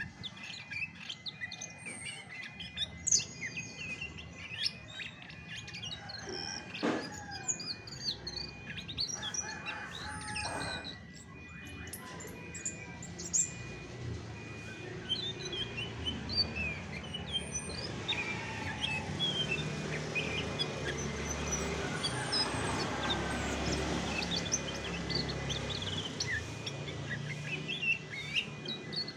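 Chestnut-backed thrush singing: a quick, continuous string of short, varied chirps and whistled notes, over a faint low rumble that grows in the second half.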